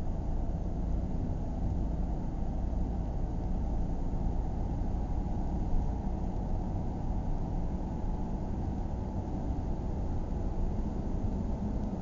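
A car driving slowly on a residential street, its engine and tyres giving a steady low rumble.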